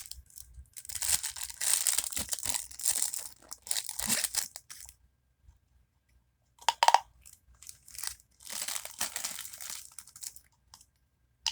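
Small plastic packaging bags crinkling and rustling in several bursts as they are handled, with one short, louder, sharper sound about seven seconds in.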